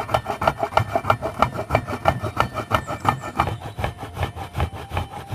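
Fresh coconut flesh rasped back and forth on a metal hand grater in a wooden frame, in quick, even scraping strokes, about five or six a second, with the shreds falling into a steel bowl.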